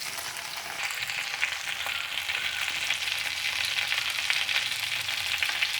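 Marinated chicken pieces for chicken 65, half-cooked, frying in hot coconut oil in a pan over a low gas flame: a steady, dense sizzle and crackle that grows a little louder about a second in.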